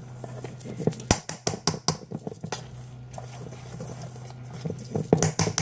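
Dry mix of wheat gluten flour and oat flakes being stirred in a stainless steel bowl: a run of quick scraping clicks about a second in, then another short run near the end.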